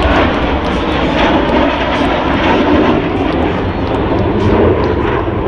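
Loud, steady jet noise from Blue Angels Boeing F/A-18E/F Super Hornets flying past during the demonstration.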